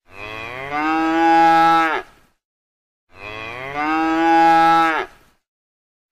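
Cow mooing: two long moos about three seconds apart, each rising at the start and then held on a steady pitch before cutting off.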